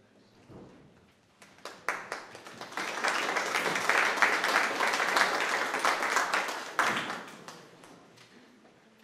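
Audience applauding. Scattered claps begin about a second and a half in, swell into full applause, and die away near the end.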